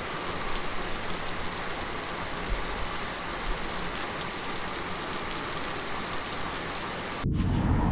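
Steady rain, an even hiss with fine drop ticks. About seven seconds in, it cuts off abruptly to a louder low rumble.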